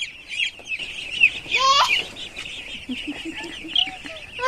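A flock of chickens calling: many short, high peeps overlapping, with one louder squawk about a second and a half in.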